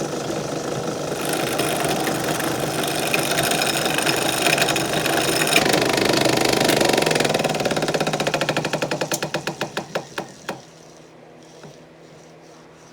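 Turning gouge cutting a spinning 2x4 blank on a wood lathe, a loud rough tearing cut. Near the end it breaks into rapid ticking that slows as the tool skips on the flat spot of the out-of-round blank, then the cut stops about ten and a half seconds in, leaving the lathe's low hum.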